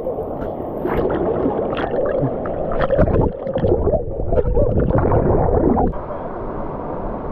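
Fast river water heard through a submerged action camera: muffled gurgling and churning with many splashes. About six seconds in it changes suddenly to a steadier rushing of the river as the camera comes back above the surface.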